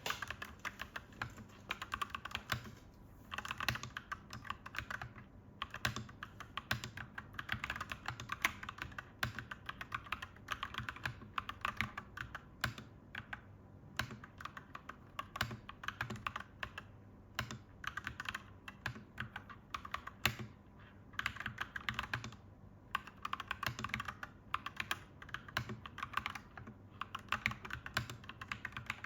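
Clacky mechanical keyboard being typed on: fast runs of key clicks with short pauses between them.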